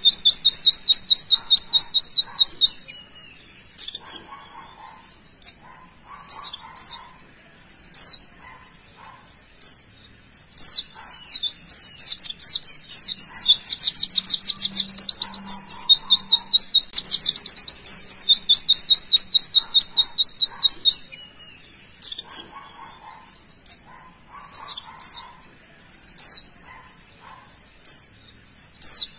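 White-eye (pleci) singing its rapid 'tembakan' volley: long runs of fast, evenly repeated high notes near the start, around the middle and again soon after, with short high chirps and quick falling whistles in between.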